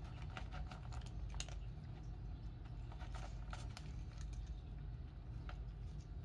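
Two domestic cats crunching dry kibble: irregular crisp clicks, thickest about a second in and again around three to four seconds in, over a steady low rumble.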